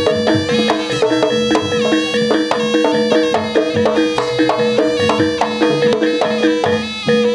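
Live Javanese jaranan (kuda lumping) gamelan music: a nasal reed-pipe melody over quick, steady drumming and a held droning tone.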